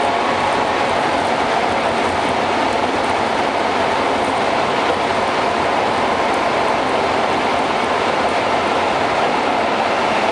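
Steady road and tyre noise of a car driving at expressway speed through a road tunnel: an even rushing noise with no breaks.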